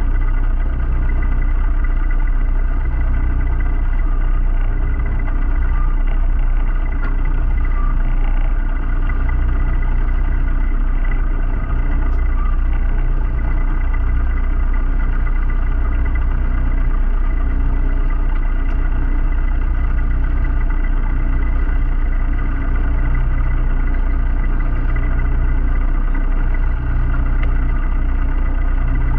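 A sailing yacht's inboard diesel engine running steadily at constant speed under way, with a steady hum of tones over a low rumble.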